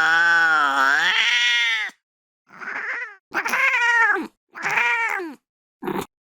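Angry cat yowling: a long, wavering yowl that breaks off about two seconds in, then three shorter yowls, each falling in pitch at its end, and a brief sharp burst near the end.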